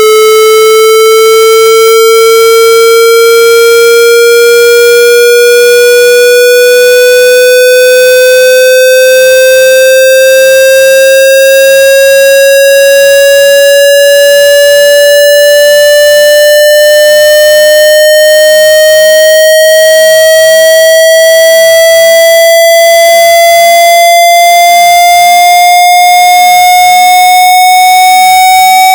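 Square-wave test tone of a hearing-test frequency sweep, rising slowly and steadily in pitch.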